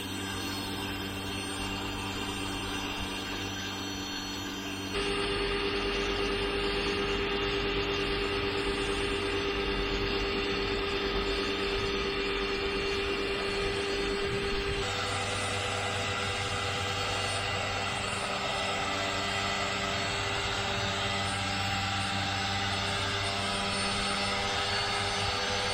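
Gas-engine pressure washer running steadily, a constant engine drone with a hiss of spray; the tone shifts abruptly about five seconds in and again about fifteen seconds in.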